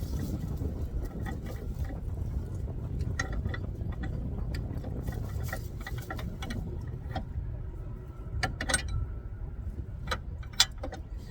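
Irregular metallic clicks and clinks of hand tools on a car's front suspension, thickest in a short cluster about eight and a half seconds in, over a steady low rumble.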